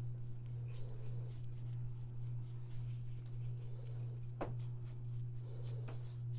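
A steady low hum runs under faint scratches and taps of a small paintbrush dabbing chalk-style paint onto clay castings. There is one sharper tick about four and a half seconds in.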